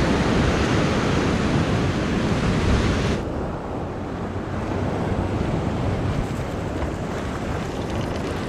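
Ocean surf breaking and washing against the rocks below, with wind buffeting the microphone. About three seconds in, the hissing wash drops away, leaving a duller rumble of surf and wind.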